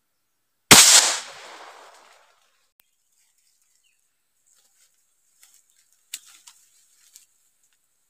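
A single loud gunshot from a long gun fired upward into bamboo, its echo dying away over about a second and a half.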